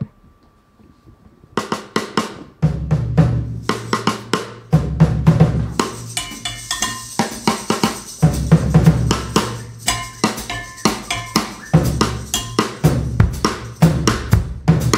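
A jazz quartet starts a tune: drum kit alone with sharp hits about one and a half seconds in, a low double-bass line joining about a second later, and electric stage piano and electric guitar notes coming in over the groove from about six seconds in.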